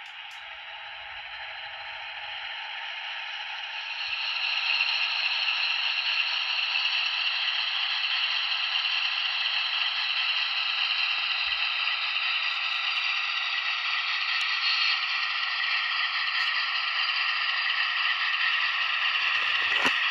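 Sound-equipped N scale CSX CW60AC model diesel locomotive running, its diesel engine sound coming thin and tinny from the tiny onboard speaker, getting louder about four seconds in.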